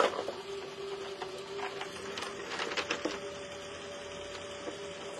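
Water splashing and steel motorcycle sprockets clinking as they are swished by hand in a tub of liquid, with a sharp splash right at the start and scattered clinks after. A steady machine hum runs underneath.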